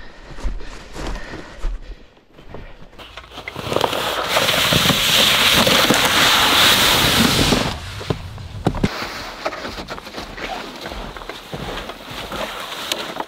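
Footsteps crunching in snow and a plastic sled scraping over the snow, with a loud, steady rushing hiss for about four seconds in the middle.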